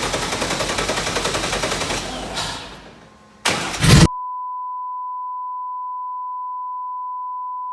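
LS V8 engine in the Datsun firing up, with a rapid even pulsing that dies away about two or three seconds in. A short loud burst follows, then a steady high-pitched beep tone cuts in and holds.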